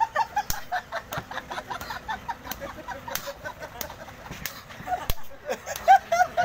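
Open-hand slaps landing on bald heads: sharp smacks roughly every half-second to second, about ten in all. Between them, onlookers laugh and call out.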